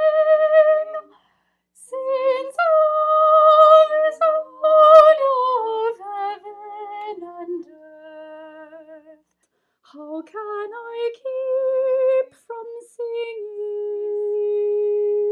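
Female voice singing the first part of a choral arrangement with vibrato, in phrases broken by two short pauses, ending on a long steady held note.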